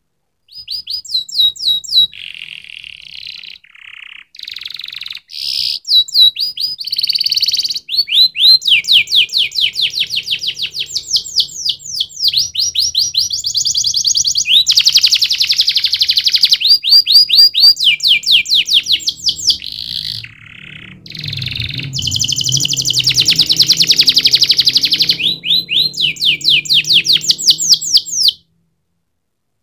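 Domestic canary singing a long, loud song of fast trills, each phrase a rapid string of identical high notes, switching to a new trill every second or two. The song breaks briefly at the start and stops near the end.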